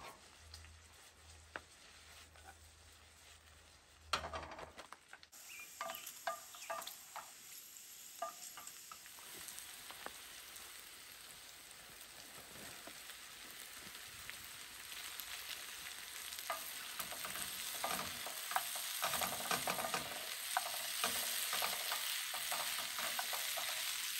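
Diced potatoes and vegetables frying in a skillet, a sizzle that starts about five seconds in and grows steadily louder, with the clicks and scrapes of the food being stirred in the pan.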